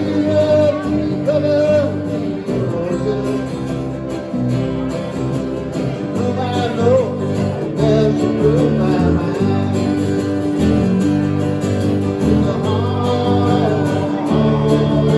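A band playing a country song, with guitar and singing.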